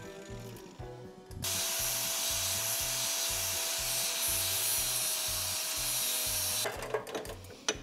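Angle grinder with a cut-off disc cutting into the steel steering knuckle, trimming off the steering stopper so the big-brake caliper bracket will fit. The grinder bites in about a second and a half in and runs steadily with a high whine under the grinding noise, then stops near the end with a few knocks.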